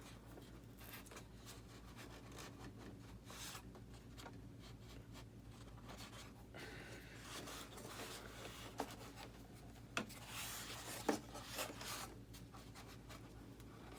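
Faint scraping and rubbing of a blade cutting into a foam RC model jet, with a few sharp clicks or snaps about nine to eleven seconds in.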